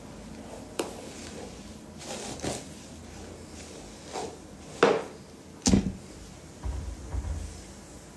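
Scattered short knocks and brief rustles of handling, about half a dozen, the loudest two around five and six seconds in.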